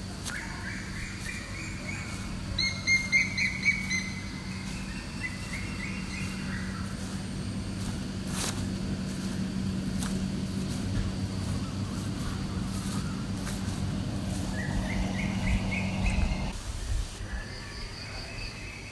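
Birds chirping in quick runs of short repeated notes, over a steady low hum that cuts off near the end.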